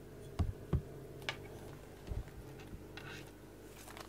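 Handling noise close to the microphone while a cat is stroked: two soft low thumps early, a sharp click just after, another thump past the middle, and light rustling of fur and hand near the end.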